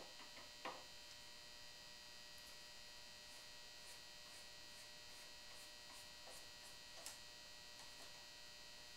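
Near silence with a steady electrical hum, and faint clicks and ticks of a screwdriver turning a small brass wood screw in a maple rifle stock; the clearest clicks come just under a second in and about seven seconds in.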